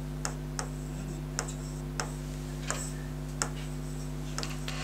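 A few light, sharp clicks at uneven intervals, about one every half second to a second, over a steady electrical hum.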